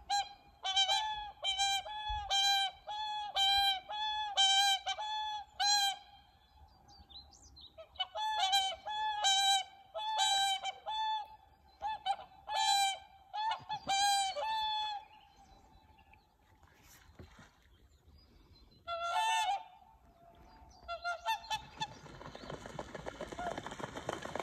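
Two whooper swans bugling: long runs of repeated trumpeting honks, about two a second, with a pause between runs and then a short burst of calls. Near the end they take off, splashing and flapping as they run across the water.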